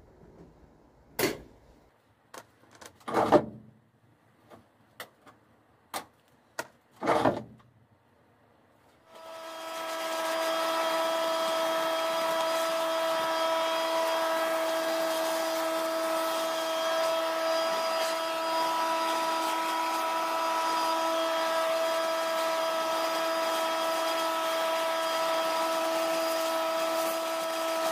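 A few scattered knocks and clatters, then about nine seconds in a petrol leaf blower starts and runs at a steady high speed: a constant engine whine over a rush of air.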